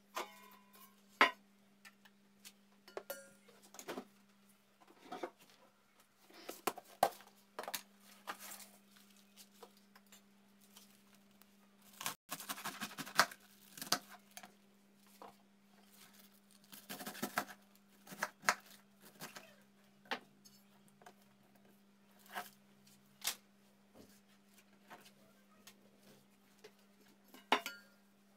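Food-prep handling sounds: scattered knocks and clinks of a stainless steel bowl and plastic cutting board being moved on the table, and rustling and tearing as cabbage leaves are handled and pulled, with a sharp knock about a second in. A steady hum runs underneath.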